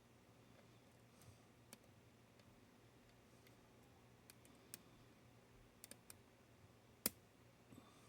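Faint, scattered metallic clicks of a hook pick and tension tool working pins inside a Paclock 90A-Pro padlock, with one sharper click about seven seconds in.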